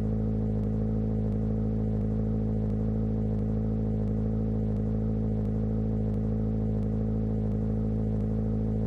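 Edited stomach-growl sound effect: a steady low drone that does not let up, with a soft pulse repeating about every 0.7 seconds.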